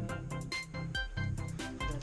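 Background music with sustained notes and quick, sharp percussive clicks.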